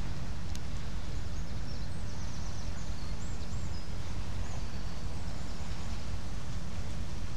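Steady low outdoor background rumble, with faint high chirps from about two to five seconds in.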